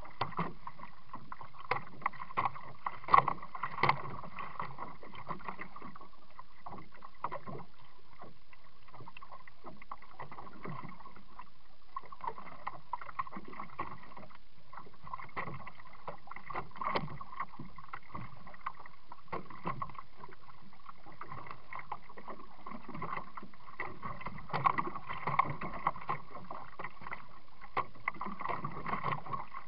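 Kayak paddling heard through a small waterproof camera mounted on the kayak: muffled, irregular knocks and splashes of paddle and water over a steady hum, with a cluster of louder knocks a few seconds in and again near the end.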